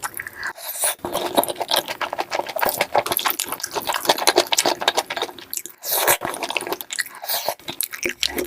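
Close-miked eating: rapid, irregular crunching and wet chewing and biting clicks, one after another.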